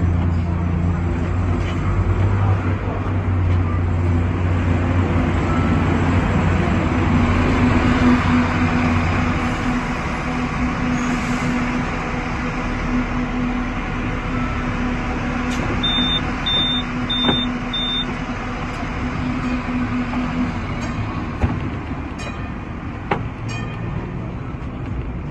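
Hong Kong sixth-generation teak-bodied double-deck electric tram running on street track, heard from the rear of the car: a continuous running rumble with a steady low tone through the middle. About two-thirds in come four short high beeps, and near the end a few sharp clicks.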